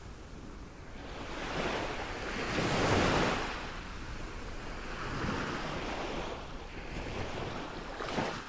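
Ocean surf washing in, a rushing noise that swells and fades in several waves, loudest about three seconds in.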